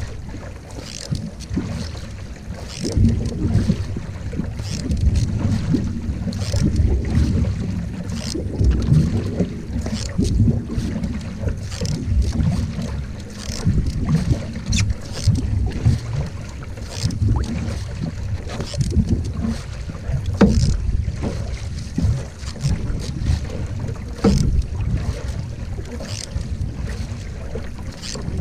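Single-blade canoe paddle strokes splashing in lake water, about one every second or so, with wind buffeting the microphone.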